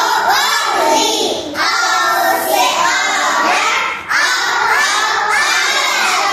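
A group of young children loudly chanting a rhyme together in unison, their voices rising and falling together, with a short break about four seconds in.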